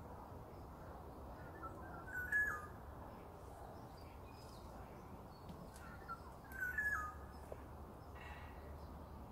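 Black-naped oriole singing a short whistled phrase twice, about two seconds in and again about six and a half seconds in, each phrase ending with a drop in pitch. A fainter call from another bird comes near the end, over a quiet forest background.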